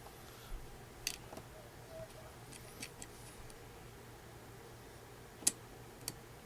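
A few small, sharp clicks and taps of hard plastic and metal parts as a hinge pin is pushed through an RC truck's steering block and axle. The sharpest click comes about five and a half seconds in, with another just after.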